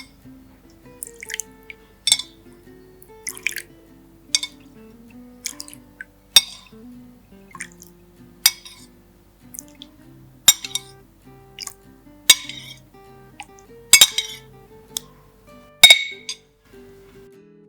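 Sharp clinks and taps of kitchenware, about one a second, the two loudest near the end, over soft instrumental background music.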